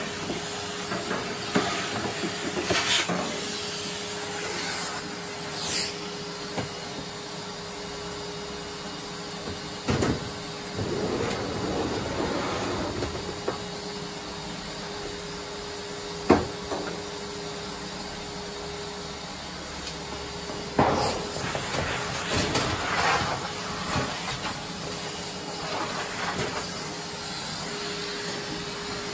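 Vacuum cleaner running steadily as it sucks dust out of the tumble dryer's cabinet, with several sharp knocks and clatters along the way.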